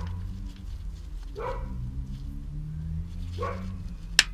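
A dog giving short barks about every two seconds, with one sharp click near the end.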